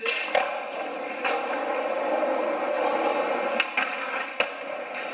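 Skateboard wheels rolling on smooth concrete, with a handful of sharp clacks from the board's wood hitting the ground or the ledge.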